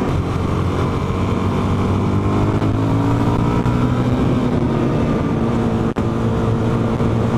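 Suzuki DR-Z400E's single-cylinder four-stroke engine pulling at high revs in fifth gear, its note slowly rising as the bike speeds up to about 49 mph, with wind rushing over the microphone. The engine is kind of screaming because the gearing has been shortened with an 11-tooth front sprocket (3 teeth down). A very brief drop in sound comes near the end.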